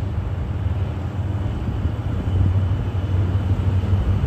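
DF200 diesel-electric freight locomotive's engines droning low and steady as it approaches slowly with a train of tank wagons, getting a little louder about halfway through as it draws nearer.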